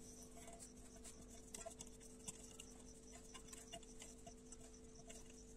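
Near silence: faint scattered light ticks as fingers spread oil around the inside of a steel bowl, over a faint steady hum.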